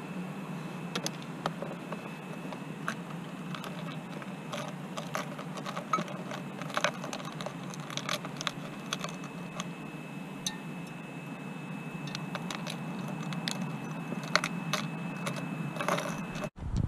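Scattered light clicks and ticks at an irregular pace over a steady low hum and a thin steady high tone. The sound cuts out briefly near the end.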